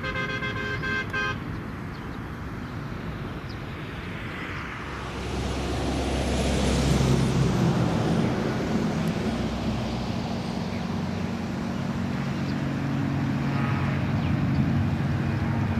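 Twin-engine jet airliner climbing out after takeoff: its engine noise swells from about five seconds in, and a low droning hum grows stronger toward the end as the aircraft comes closer. A short horn toot sounds right at the start.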